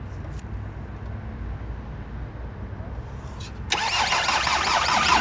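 A VW 2.5 TDI five-cylinder diesel is cranked by its starter about three and a half seconds in and starts, running loudly straight away. This is the first start after the Bosch injection pump was refitted and bled of air.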